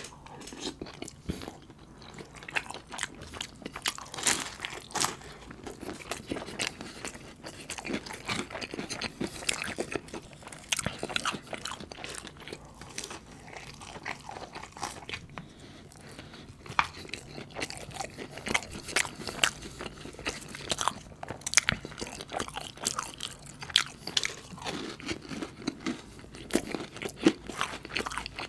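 Close-miked eating: a samosa with rice and butter chicken sauce being bitten and chewed, with many sharp, irregular crunches and mouth clicks.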